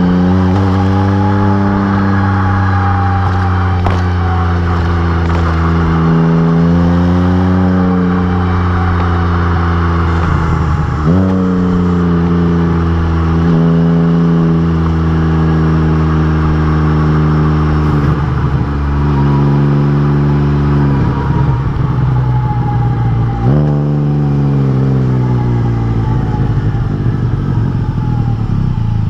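Can-Am Spyder RT's Rotax 1330 three-cylinder engine running on the road through an RLS Crusher aftermarket exhaust, its pitch climbing and then dropping several times as it accelerates and shifts gears, over steady wind noise.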